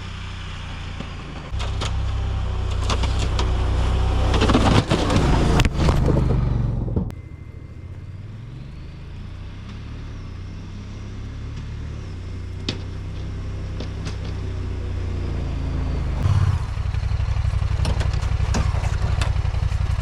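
Snowplow vehicle's engine running, loud with clattering for the first several seconds. The engine drops back suddenly about seven seconds in, then picks up again near the end.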